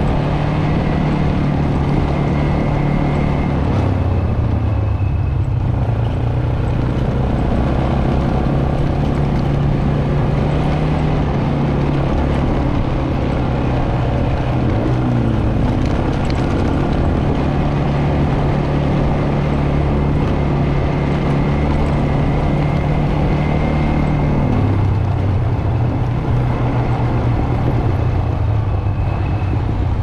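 SYM ATV engine running while riding along a village road, its note dropping briefly about four seconds in and again near the end as the throttle eases, over steady road and wind noise.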